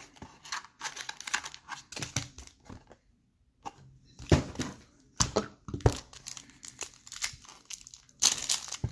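Wrapping on a box of trading cards and its packs being torn and crinkled, in irregular crackling bursts with a few sharp knocks in the middle and a short pause about three seconds in.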